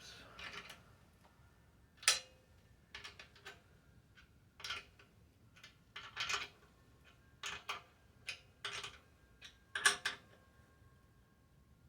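Irregular metallic clicks and clinks of a 1/2 inch wrench working the light pod's mounting nut on its bracket, some strikes ringing briefly; the nut keeps turning, so it isn't tightening down.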